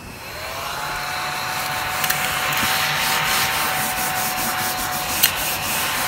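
Battery-powered Crumby ladybug mini vacuum switched on: its small motor spins up over the first second into a steady high whine, while its base rubs and scrapes over a perforated leather car seat. Two sharp clicks stand out, about two seconds in and near the end.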